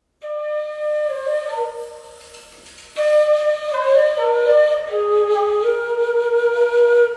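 Solo wind-instrument melody in two phrases: the first fades away, and a louder second phrase comes in about three seconds in.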